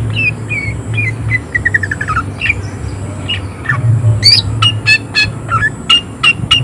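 Cucak ijo (green leafbird) singing a fast, varied song of sharp whistled notes: a quick descending run of short chirps in the first half, then a string of sharp, repeated calls about three a second. A steady low hum lies underneath.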